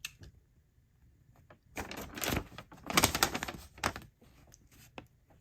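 Rustling and crinkling of packaging being handled, in several short bursts starting about two seconds in.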